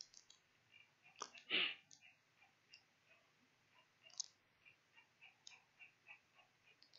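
Faint clicking and ticking: small, evenly spaced ticks about three a second, a few sharper clicks, and one louder short noise about one and a half seconds in.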